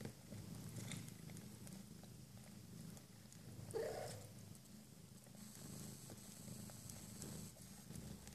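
Mother cat purring steadily and softly while nursing her newborn kittens, with one short squeak about four seconds in.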